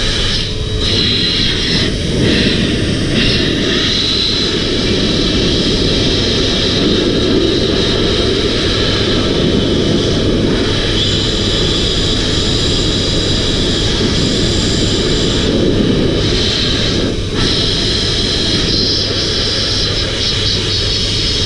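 Vacuum cleaner motor running steadily, air rushing through its hose and crevice nozzle, with a high whine over the rush, as the nozzle is worked over a spray paint gun to clean it.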